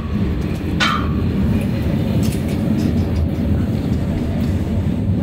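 Steady low rumble of the Mauritania Railway iron ore train's wagons rolling slowly on the rails, with a short sharp metallic noise about a second in.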